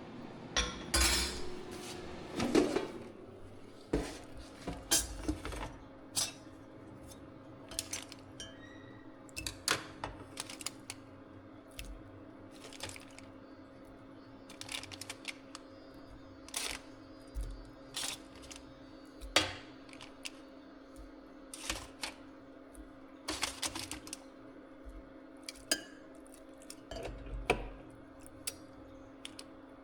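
Kitchen dishes and utensils clinking, tapping and knocking at an irregular pace during food preparation, over a steady low hum that starts about two and a half seconds in.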